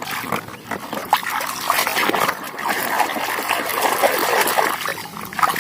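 Water splashing and trickling over a mud-covered toy vehicle as it is rinsed clean, with continual small spatters.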